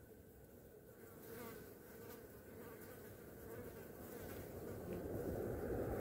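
Flies buzzing around a deer carcass, a faint wavering drone. A low rushing noise swells up near the end.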